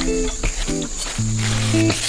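Instrumental background music: a melody of held notes changing about every half second.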